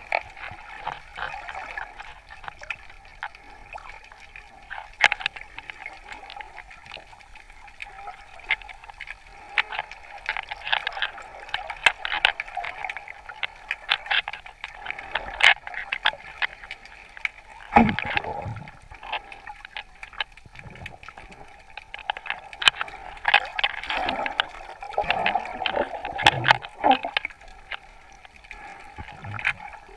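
Water heard underwater during snorkeling: a steady muffled wash scattered with short crackling clicks, with a few louder gurgling swells a little past halfway and again near the end.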